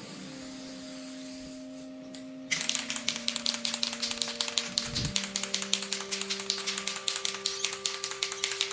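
Aerosol spray paint can being shaken, its mixing ball rattling in rapid clicks that start about two and a half seconds in, over background music.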